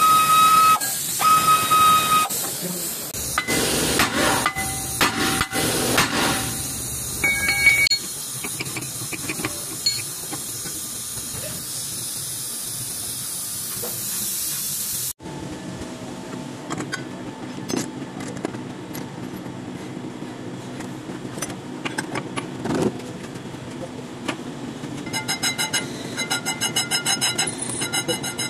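Air tool hissing and whining in short spurts as the brake caliper bracket and disc are taken off the hub. After a sudden cut, a brake lathe runs steadily as it skims the brake disc, with a fast regular pulsing near the end.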